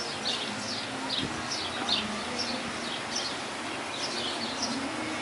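A bird chirping over and over, about two short, high, falling chirps a second.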